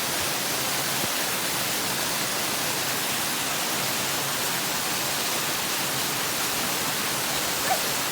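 Waterfall, a steady rushing hiss of falling water.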